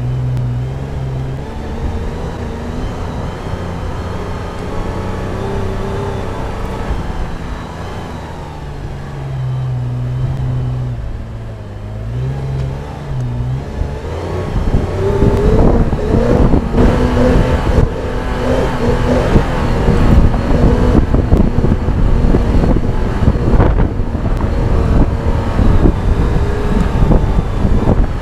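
A four-wheel drive's engine pulling up a soft-sand hill climb, its pitch shifting in steps through the first half. From about halfway it revs harder and louder, with wind buffeting the microphone.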